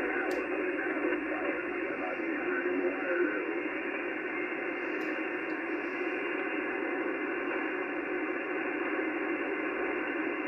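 HF amateur transceiver's speaker putting out 80 m band static, a steady hiss cut off at the top by the narrow receive passband. Near the end the tuning knob is turned down the band.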